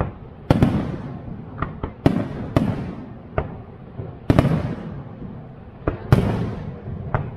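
Aerial fireworks shells bursting one after another: about five big booms, each trailing off over a second or so, with smaller cracks and pops between them.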